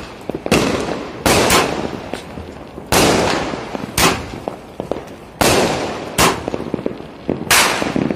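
Mercury brand 15-shot firework cake firing its aerial shots. There is a sharp bang every second or so, sometimes two close together, and each trails off before the next.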